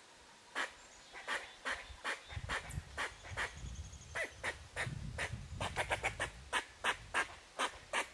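Squirrels giving alarm calls: a long run of short, sharp barks, a few a second, coming faster in the second half. A low rumble runs under the middle of it.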